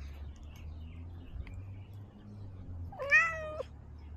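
A domestic cat meows once, a short call about three seconds in, over a low steady rumble.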